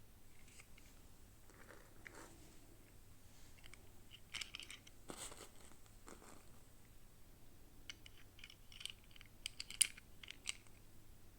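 Toy packaging being opened and handled: quiet crinkling and tearing of plastic and paper, with a run of sharp little clicks near the end.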